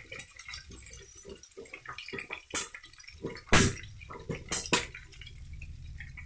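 Squid rendang sauce in a wok still bubbling after the flame is turned off, with irregular pops and spits, the loudest about three and a half seconds in.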